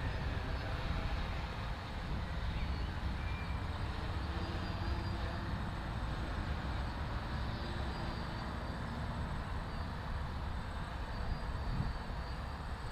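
DJI Flame Wheel F450 quadcopter's motors and propellers humming steadily from high overhead as it descends, the pitch shifting a little, over a low rumbling noise.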